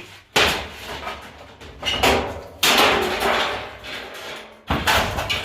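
Sheet-metal countertop oven being hammered and pried apart: a few loud clattering bangs and scrapes of metal and plastic parts, each dying away over about a second.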